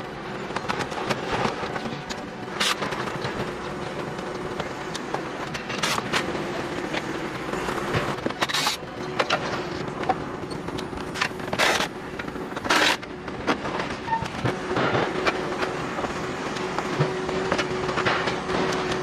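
Plastic dashboard trim and headlight fittings being pried and pulled off a light truck by hand: irregular clicks, snaps and scraping, with several sharper cracks along the way. A faint steady hum runs underneath.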